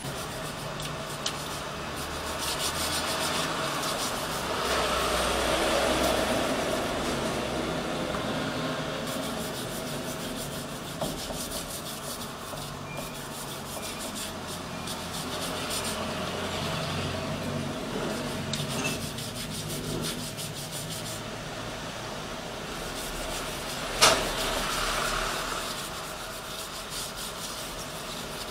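Hand scraping and rubbing at a car battery's lead terminal post, a steady rough rasping with small clicks, and one sharp knock near the end.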